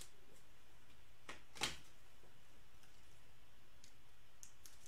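A few soft clicks and taps of trading cards and clear plastic sleeves being handled, the loudest about a second and a half in, over a steady faint hiss.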